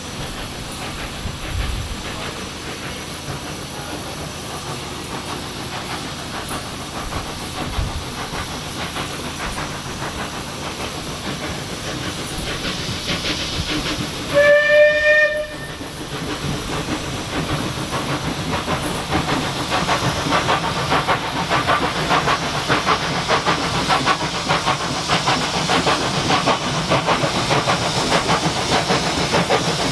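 Steam locomotive hissing steam, which sounds one whistle blast of about a second and a half halfway through. It then sets off, with a fast, regular beat of exhaust chuffs that grows louder toward the end.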